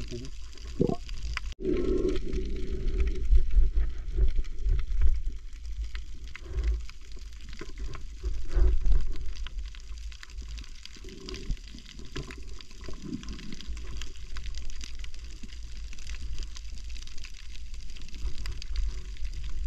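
Muffled water sloshing and gurgling, heard by a camera under water, over a steady low rumble with scattered faint clicks. The sound drops out for a moment about a second and a half in.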